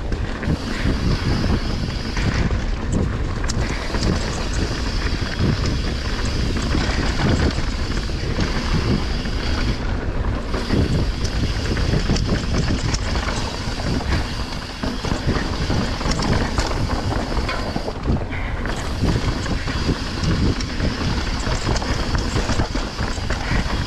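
Downhill mountain bike descending fast on a dirt forest trail: wind buffeting the microphone over the steady rush of knobby tyres on dirt, with scattered clicks and rattles from the bike over the rough ground.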